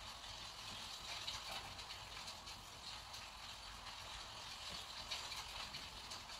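Fine paintbrush dragging across rough watercolor paper in short strokes: a faint, scratchy brushing with small irregular swells.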